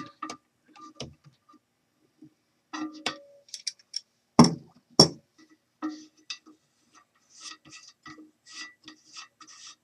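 Metal adjustable wrench clicking and clinking against the trip lever nut on a ceramic toilet tank as the reverse-threaded nut is loosened, with two sharper knocks about four and a half and five seconds in. Near the end comes a run of light, even ticks as the lever is worked loose by hand.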